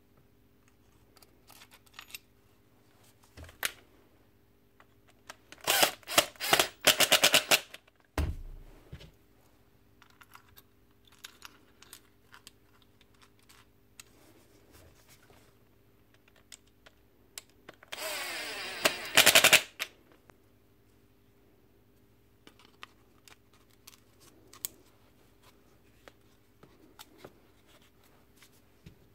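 Clicks, taps and clatter of hands and a pick working parts into an angle grinder's plastic motor housing while a new field coil is fitted. Two louder spells of rattling come about six seconds in and again near nineteen seconds, with a low thud just after the first, over a faint steady hum.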